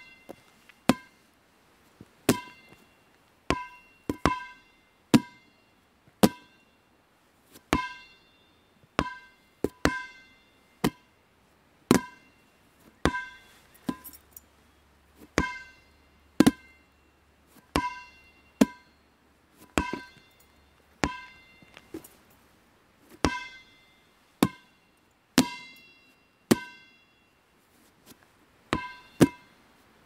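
Rubber dodgeball bouncing over and over. Each bounce is a sharp smack with a brief ringing tone. The bounces come at an uneven pace of roughly one or two a second, now and then two or three in quick succession.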